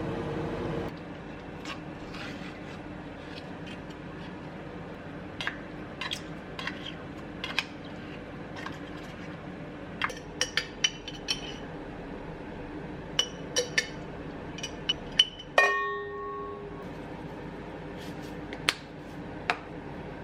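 Dishes and cutlery clinking and knocking in scattered light strikes. One louder strike about fifteen seconds in rings on briefly at several pitches. A steady low hum runs underneath.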